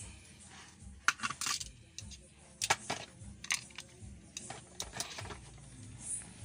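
Irregular sharp clicks and clinks of hand tools and small hard parts being handled while a panel gauge is taken out, about a dozen in all. The loudest come about a second in and just before the three-second mark.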